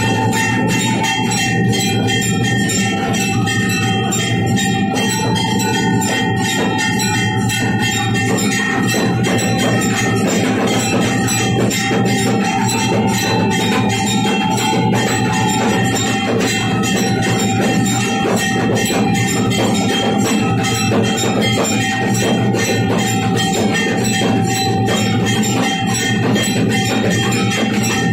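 Traditional temple festival music: fast, dense drumming with ringing bells over a long held high tone.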